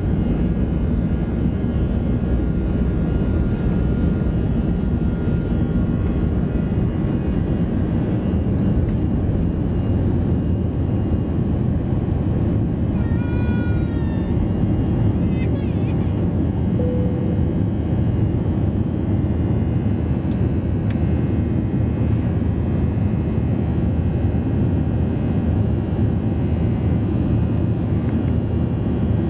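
Airbus A321 jet engines running at takeoff power: a steady, loud, unbroken engine noise with a few faint steady tones over it.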